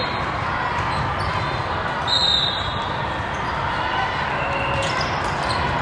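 Echoing crowd and court noise in a large gym during a volleyball match, with a short high squeak about two seconds in.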